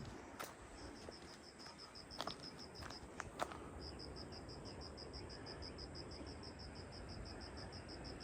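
An insect chirping in fast, even pulses, about eight a second, in long runs. A few sharp clicks in the first half, the loudest about three and a half seconds in.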